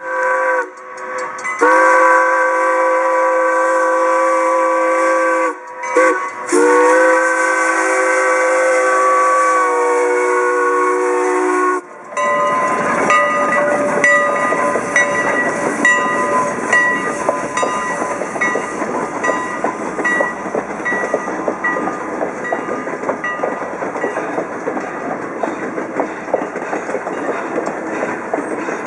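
Steam locomotive's chime whistle sounding a chord of several tones: a short blast, then two long blasts, the two-long signal for releasing brakes and proceeding. About twelve seconds in the whistle stops and the train's running noise takes over, a dense rapid beat of exhaust and wheels.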